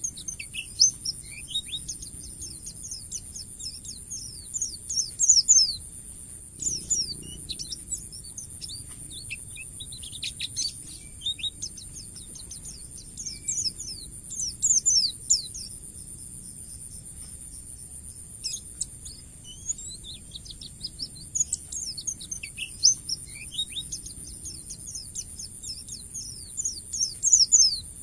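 White-eye (pleci) singing long runs of quick, high twittering notes, coming in bursts with short pauses between them. A steady high hiss runs underneath.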